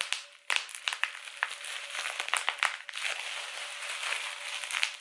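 Bubble wrap being squeezed and crinkled in the hands close to the microphone: a dense crackle broken by many sharp pops.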